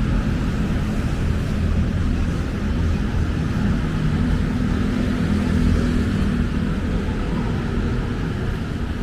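Street traffic: motor vehicle engines running steadily close by, a low constant engine sound over the general road noise.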